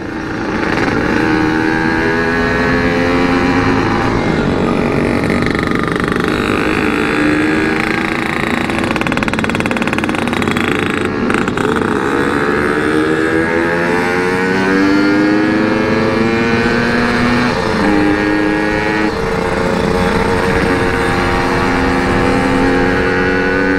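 Yamaha RX-King 135cc two-stroke single-cylinder motorcycle engine running through a CRC Series aftermarket exhaust while being ridden, its pitch climbing steadily under acceleration and dropping in steps at gear changes near the end.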